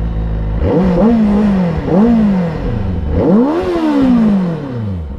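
Benelli 600i's inline-four engine revved from idle at standstill: three throttle blips, each rising and falling back, the third the highest and longest, sinking back to idle near the end.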